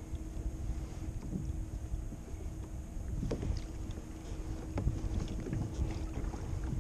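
Wind buffeting the microphone and water slapping against a kayak's hull, with scattered small clicks and splashes that grow more frequent about halfway through.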